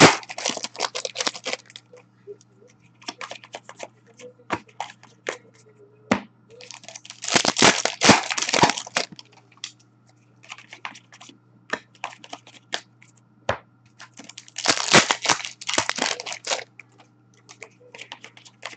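Hockey card pack wrappers torn open by hand three times, each a second or two of crinkly tearing, with light clicks and taps of cards being handled in between.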